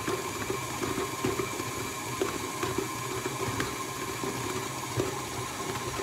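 KitchenAid Artisan stand mixer's motor running steadily on medium speed, mixing a stiff-ish dough in its steel bowl, with light knocks now and then.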